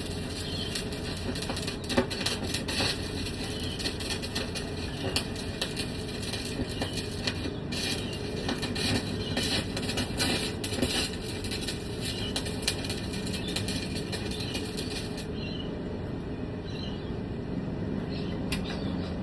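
Stick (arc) welding: the electrode's arc crackling steadily with many small pops. About three-quarters of the way through the crackle cuts out sharply, as the electrode sticks to the work near the end of the rod.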